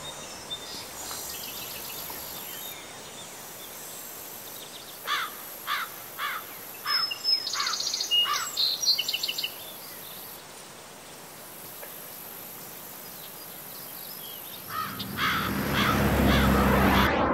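Outdoor ambience: a steady background hiss with birds calling in the middle, first a run of short chirps about two a second, then higher twittering. Near the end a louder rushing sound with a low hum swells up and cuts off abruptly.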